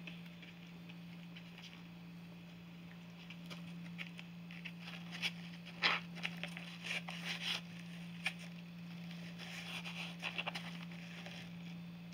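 A cat rubbing and pawing in a cardboard box strewn with dried catnip: scattered scratches and clicks on the cardboard, in two clusters in the middle and later part. A steady low hum runs underneath.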